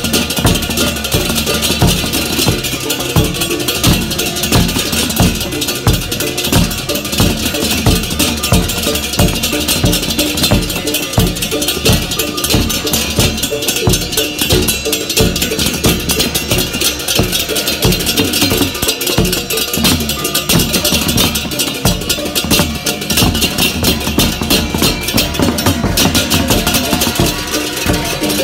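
Balinese gamelan baleganjur playing a processional piece: a dense, continuous clash of hand-held cengceng cymbals over fast, steady kendang drum strokes, with small gongs ringing.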